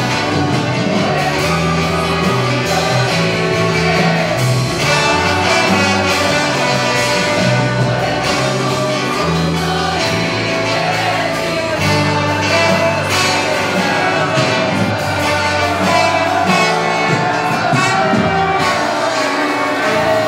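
Church choir singing a praise song through microphones, over steady instrumental accompaniment with a moving bass line.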